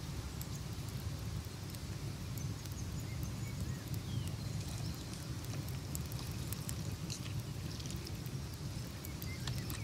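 Crackling log fire ambience: a steady low rumble with scattered small sharp crackles, and a few faint short high chirps.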